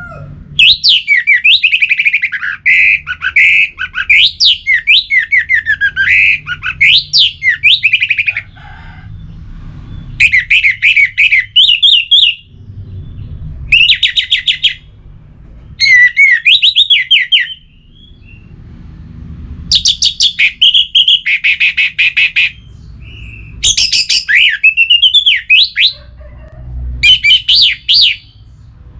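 Orange-headed thrush singing: bursts of fast, varied warbling notes, a long run at the start and then shorter phrases separated by brief pauses.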